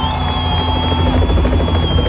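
Helicopter sound effect played over a stadium concert PA: a rapid low rotor throb under the music. A high whistle-like tone is held steady for about two seconds, then slides down.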